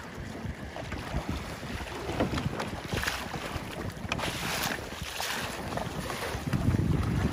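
Wind buffeting the microphone over choppy lake water, with splashing as a swimmer in a drysuit kicks and hauls himself up onto a Vibe Shearwater sit-on-top kayak. The splashes come in bursts around the middle, and the wind rumble swells near the end.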